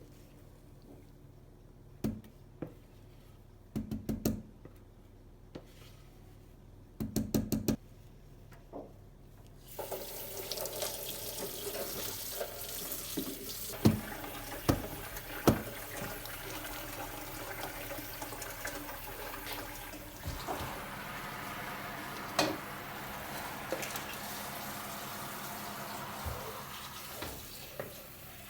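A few light knocks and short rattling clicks, then about ten seconds in a kitchen tap is turned on and water runs steadily into the sink, with occasional sharp clinks over it.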